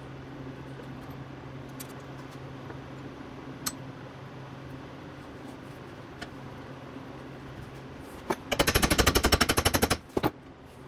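Cordless impact driver hammering briefly on a bolt: a rapid, even run of sharp metallic impacts, about a dozen a second, lasting about a second and a half near the end, followed by two single knocks. A steady low hum runs underneath.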